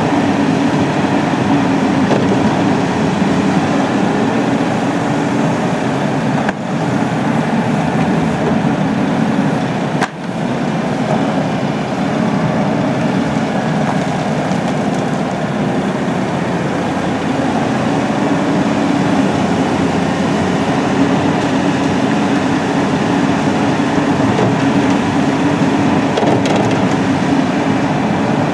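Cat 320C tracked excavator at work: its diesel engine running steadily under load as the bucket digs and scrapes through frozen soil and stones.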